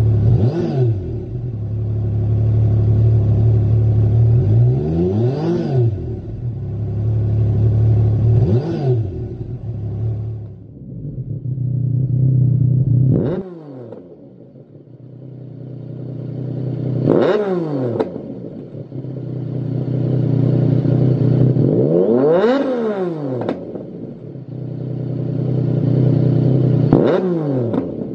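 Yamaha MT-09 Tracer's 847 cc inline-three engine idling and being revved in short throttle blips, each one rising and falling. It runs first through the stock exhaust, with three revs. About halfway through it switches to a Lextek XP13C aftermarket carbon silencer, with four more revs, the second-to-last one held longer.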